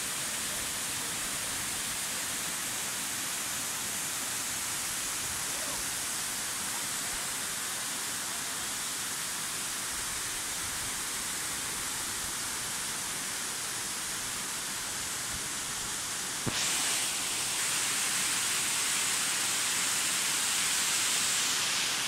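Waterfall's water rushing over rock in a steady hiss. About sixteen seconds in, a click is followed by a louder, higher hiss that holds until near the end.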